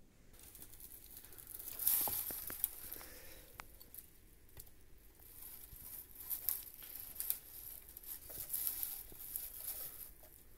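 Crinkly rustling of something being handled, with scattered small taps and clicks, loudest about two seconds in.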